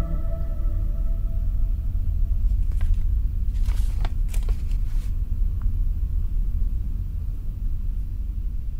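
Deep, steady low rumble from a short film's sound design, with a few brief sharp noises between about three and five seconds in.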